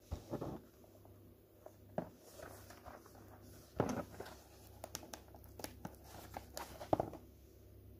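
A cellophane-wrapped cardboard chocolate box being handled and turned over: irregular crinkles, rustles and light knocks, the loudest about four seconds in and about seven seconds in. A faint steady hum lies underneath.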